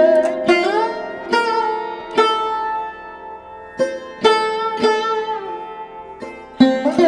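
Instrumental Indian classical music on a plucked string instrument: single plucked notes, several bent upward in pitch, over a steady drone.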